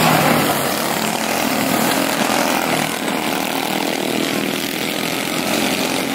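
Quarter midget race cars' small single-cylinder engines buzzing at racing speed around a dirt oval. One car passes close at the start, and the sound eases a little as it pulls away.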